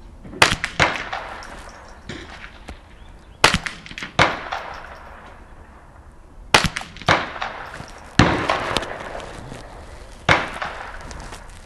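Ruger 10/22 .22 rifle with a muzzle brake firing: about eight sharp reports at an uneven pace, several coming in quick pairs, each with a short ringing tail.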